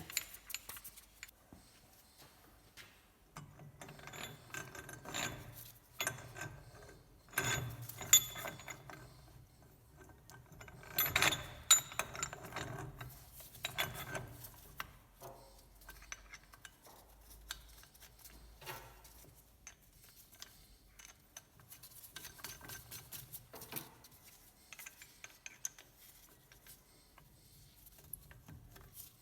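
Metal clinks, scrapes and runs of ratchet clicking as a hub puller is fitted to the wheel studs and its nuts and screw are tightened with a ratchet. The sounds come in irregular clusters, busiest and loudest in the first half.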